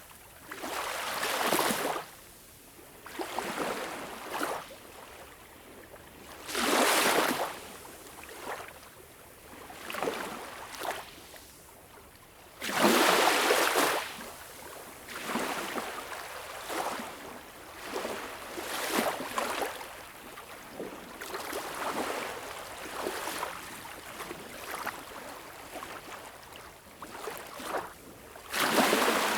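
Small, gentle waves breaking and washing up the beach, each one a hissing surge lasting one to two seconds, with quieter lapping and trickling between them; the biggest arrive about seven and thirteen seconds in and near the end.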